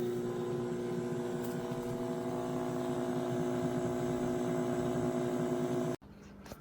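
Toshiba EC042A5C-BS countertop microwave oven running: a steady electrical hum with a fan rushing behind it, cutting off suddenly near the end.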